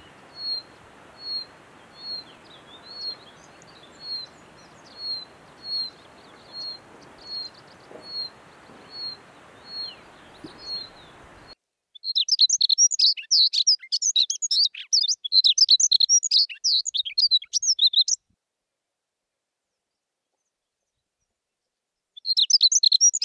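White-tailed rubythroat calling with a short, thin, down-slurred whistle, repeated about once every 0.7 seconds. Partway through, its song takes over: a loud, shrill run of rapid jingling, twittery notes in warbling phrases, which breaks off for a few seconds and starts again near the end.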